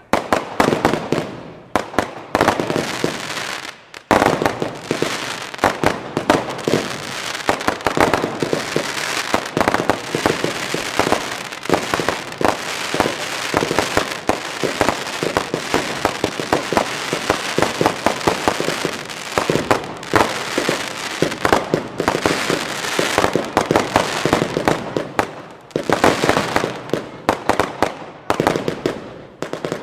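Consumer fireworks firing a dense, continuous barrage of launches, bangs and crackling bursts overhead, with short lulls about four seconds in and again near the end.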